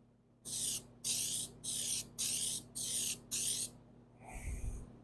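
Aerosol can of weld-through primer spraying in six short hissing bursts, coating the inside of a steel patch panel before it is welded in. A fainter, lower knock follows near the end.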